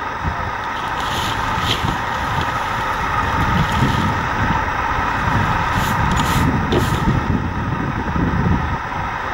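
Steady engine noise, with an uneven low rumble underneath.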